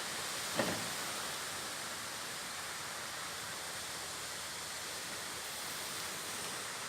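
Steady wind, an even rushing hiss, with a short thump about half a second in.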